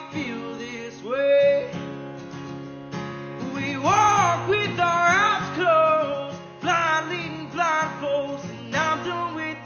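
A song with mellow singing over acoustic guitar, the voice holding long, wavering notes in the middle.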